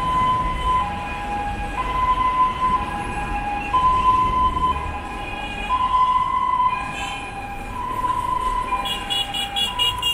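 Two-tone emergency vehicle siren, alternating between a high and a low note, each held just under a second, over the low rumble of road traffic.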